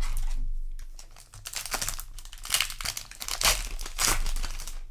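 Foil wrapper of a Magic: The Gathering play booster pack crinkling and tearing as it is handled and ripped open, in a series of crackly bursts.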